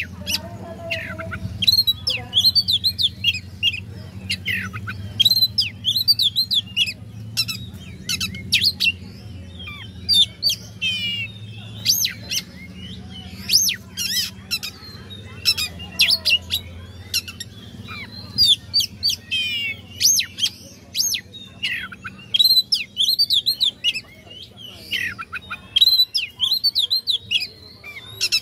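Oriental magpie-robin (kacer) singing a varied song of whistles, quick slurred notes and trills in phrase after phrase with short pauses between them, over a steady low hum.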